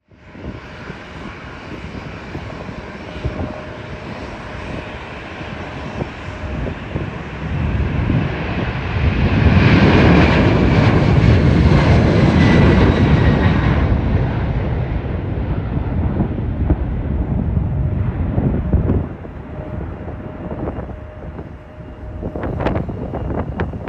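Boeing 747-400F(ER) freighter's four jet engines at takeoff power. The sound builds to a loud peak as the aircraft rotates and passes, with a whining tone that falls in pitch, then fades as it climbs away.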